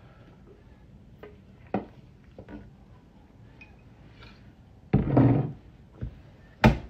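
A few sharp knocks and clicks over low room noise: one about two seconds in, a louder short rush of noise about five seconds in, and a sharp knock near the end.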